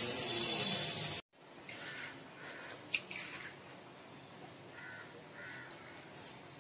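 A steady hiss that cuts off about a second in. After it, faint crow caws come in two pairs, with a few light clicks and taps from fish being handled in a bowl in a steel sink.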